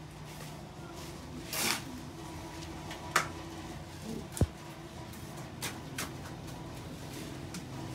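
A few scattered, irregular knocks and clunks from building work over a faint steady hum. The loudest are a sharp knock about three seconds in and a dull thud a second or so later.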